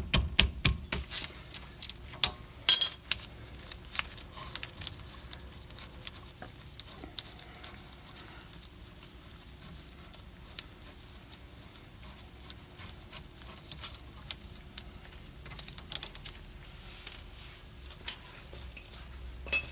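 Hand tools working on a car's rear brake caliper bolts: light metal clinks and ticks of a wrench and loose bolts, with one loud ringing metallic clank about three seconds in. After that it goes mostly quiet, with only scattered small clicks until a few more clinks near the end.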